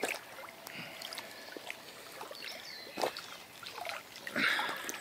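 Water dripping and trickling while a wet carp is handled and turned over, with small scattered knocks and a louder knock about three seconds in.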